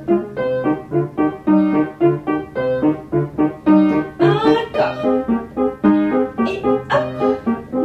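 Piano music with a steady beat of struck notes and chords, in the style of a ballet class accompaniment.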